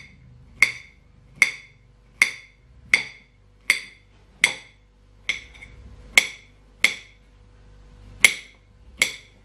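Small kitchen knife slicing a peeled banana into rounds on a ceramic plate: at each cut the blade taps the plate with a short, ringing clink, about one a second in a steady rhythm.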